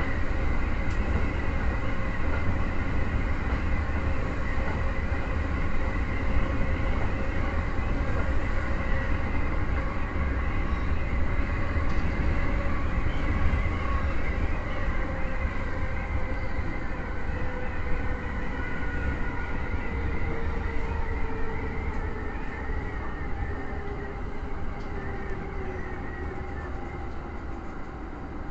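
E231-series electric commuter train running, heard from the driver's cab: a steady rumble of wheels on rail with thin whining tones. From about two-thirds of the way in, the whines slowly fall in pitch and the sound fades as the train slows into a station.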